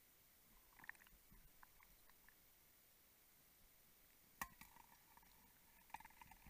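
Near silence underwater, broken by a few faint ticks about a second in and near the end, and one sharper click about four and a half seconds in.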